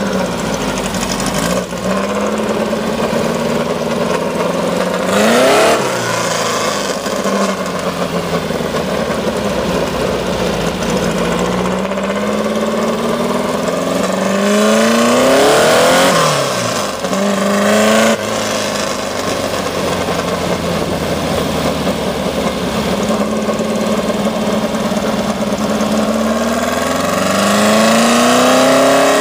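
Rail buggy's engine pulling hard under acceleration, its pitch climbing steadily and dropping sharply at each gear change, about 5 and 16 seconds in, with wind and road noise rushing past the open buggy.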